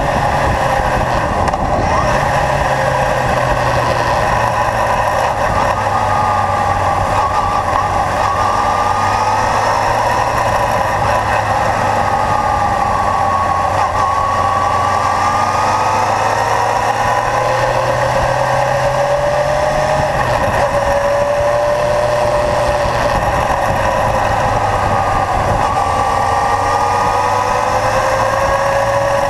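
Kawasaki Zephyr's air-cooled inline-four engine running under way, its pitch rising and falling slowly as the throttle opens and closes through the bends, over steady wind and road noise.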